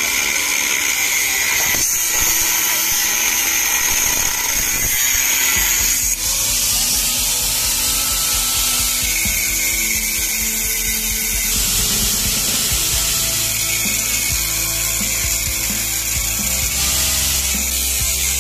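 Angle grinder with a thin cut-off disc cutting through the sheet-metal shell of a motorcycle's stock exhaust muffler: a loud, steady, high grinding whine as the disc bites into the metal.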